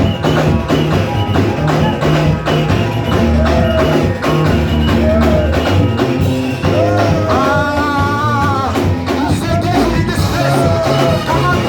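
Church worship music played by a band: a steady percussion beat and a bass line moving in held notes, with a singing voice.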